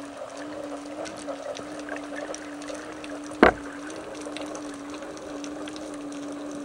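Underwater sound picked up by a speargun-mounted camera: a steady low hum with faint scattered crackling ticks, and one sharp knock about halfway through.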